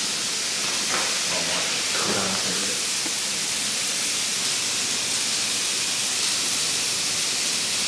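Food frying in a pan, sizzling in a steady hiss.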